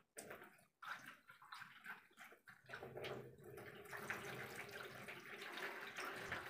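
Water poured in a thin stream from a plastic jug into a plastic basin, faintly splashing and trickling, the flow steadier from about three seconds in.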